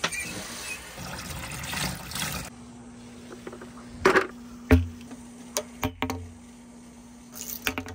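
Water running from a wall tap into an attached hose for about two and a half seconds, stopping abruptly. Then a few separate sharp knocks and clacks of plastic balls and a plastic bucket being handled, over a faint steady low hum.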